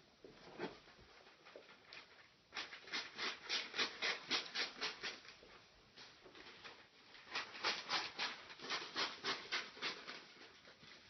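Paper being rubbed and crinkled while a dog is wrapped in it, in two runs of quick, even strokes, about five a second, each lasting a few seconds.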